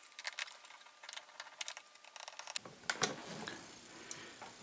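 Faint, irregular light clicks and ticks of a small Phillips screwdriver working the tiny screws of a MacBook's metal hard-drive/memory cover, with a slightly louder click about three seconds in.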